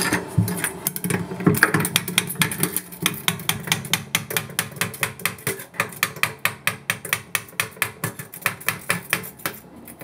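Razor blade sawing through the silicone seam of a glass aquarium, making quick rhythmic scraping strokes against the glass, about five a second.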